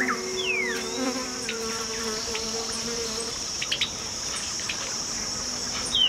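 Steady, high-pitched insect chorus drone, with a falling bird whistle just after the start and another at the end, and two short clicks a little past the middle.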